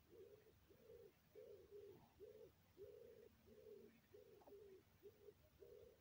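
A steady series of soft, low cooing notes, each held briefly and all on about the same pitch, coming just under two a second.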